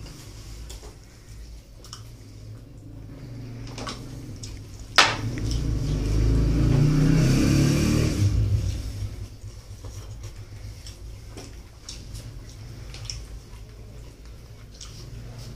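Eating with the hands from a platter of mutton and rice: small scattered clicks and chewing. About five seconds in, a sharp knock, then a loud low rumble that swells and dies away over about three seconds.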